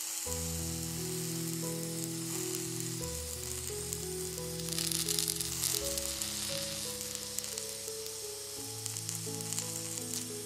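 Sliced vegetables sizzling on a hot oiled ridged grill pan, the sizzle swelling louder about halfway through, under background music with slow sustained chords.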